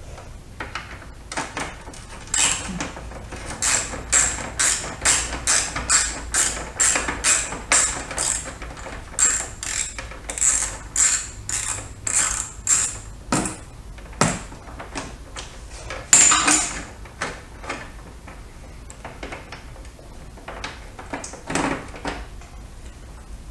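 Hand ratchet driver with an Allen bit clicking in quick strokes, about two a second, as the side-panel bolts are backed out. A louder clatter comes about two-thirds of the way through, then a few more clicks near the end.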